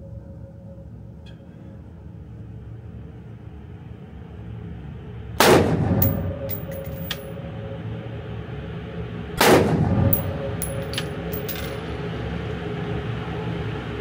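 Two single shots from an AR-15 rifle about four seconds apart, each echoing briefly in an indoor range. Each shot is followed by a few light metallic clinks.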